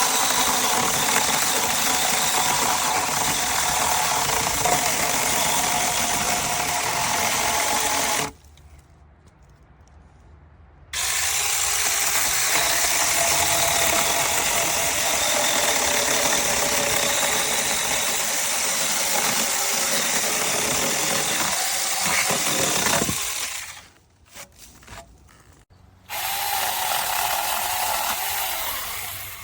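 Saker 6-inch cordless electric mini chainsaw running in three long bursts: about eight seconds, then about twelve seconds after a short stop, then a brief run near the end.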